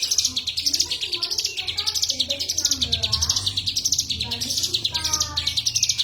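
A songbird singing non-stop at full voice: fast, high chattering trills that swell and fade over and over.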